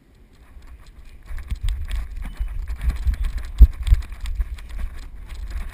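Footfalls of someone running on grass, picked up as dull thumps and rumble by a head-mounted GoPro HD Hero 2 sealed in its waterproof housing. The thumps build after about a second and are loudest a little past halfway.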